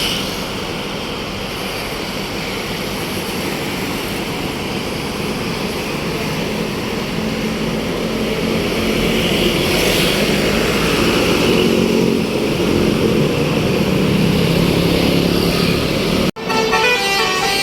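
Indonesian tour bus sounding its telolet basuri, a multi-tone musical air horn, over the noise of the bus. It grows louder about halfway through. An abrupt cut near the end brings in a different, choppier horn tune.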